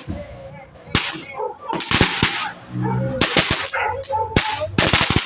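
Small festa junina firecrackers going off in sharp pops and bangs, several in quick succession about three seconds in.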